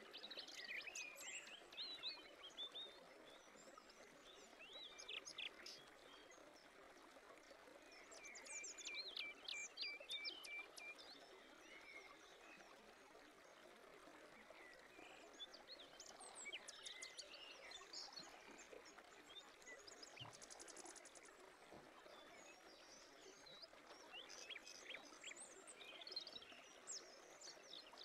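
Faint birdsong: several birds giving scattered chirps and short rapid trills over a steady soft background hiss.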